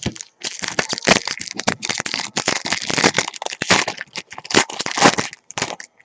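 A foil trading-card pack wrapper being torn open and crumpled by hand, with a dense run of crinkling and crackling for several seconds.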